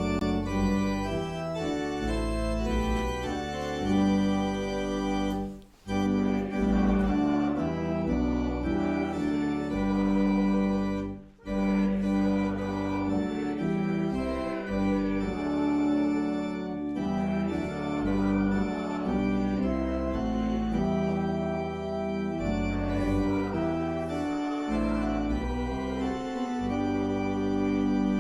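Organ playing held chords over a low bass line, an offertory played while the offering is collected, with brief breaks between phrases about 6 and 11 seconds in.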